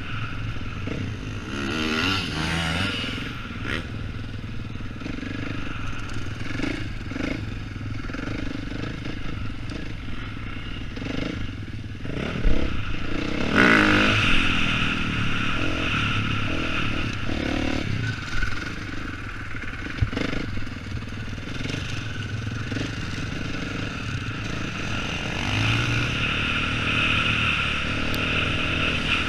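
Dirt bike engine running at a slow pace on a motocross track, the pitch rising and falling as the throttle is opened and closed, with a harder rev about halfway through.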